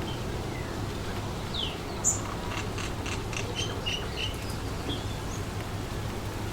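Steady wind noise with wild birds calling over it: a falling call, then one sharp loud chirp about two seconds in, followed by a quick run of short chirps for a couple of seconds.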